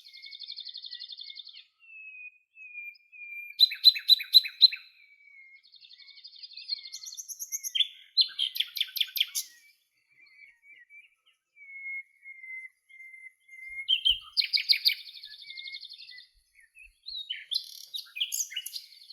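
Small birds chirping and calling: loud clusters of rapid chirps and buzzy trills about four, eight, fourteen and eighteen seconds in, with thin high whistled notes running between them and a quieter stretch in the middle.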